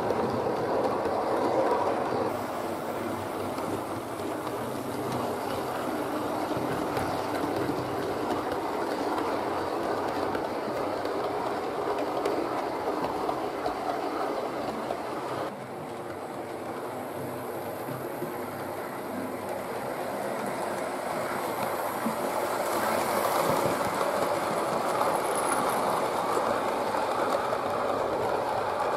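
Hornby OO gauge model train running on the layout's track: a steady rumbling whirr of metal wheels on the rails and the locomotive's motor. The level drops abruptly about halfway through, then builds again as the train draws near.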